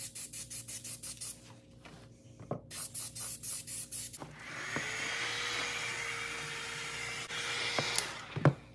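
Aerosol spray-paint can spraying black paint onto a plastic mirror cap in rapid short hissing bursts, in two spells. Then an electric heat gun runs with a steady rush of air and a fan hum for about four seconds before it stops, followed by a sharp knock.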